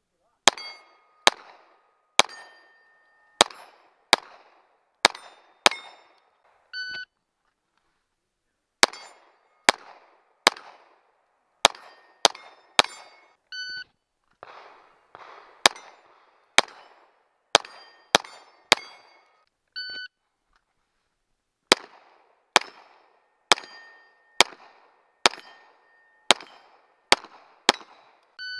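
Glock pistol firing strings of shots at steel plates, about one shot every 0.7 s, with the hit plates ringing. A shot timer's electronic beep starts each new string: three beeps fall between the strings and one comes at the very end.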